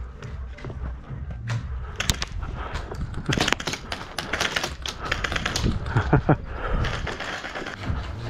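Airsoft electric guns firing in rapid bursts: a fast clatter of sharp clicks that starts about two seconds in.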